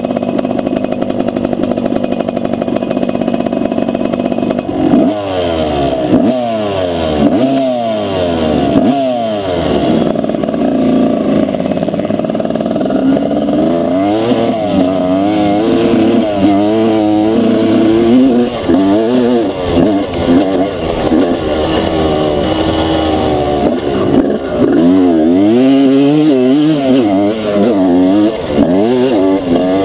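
Honda CR250 two-stroke single-cylinder motocross engine heard close up from the bike, running fairly steadily at first. From about five seconds in it revs up and drops back again and again as the rider accelerates, shifts and rolls off the throttle around the track.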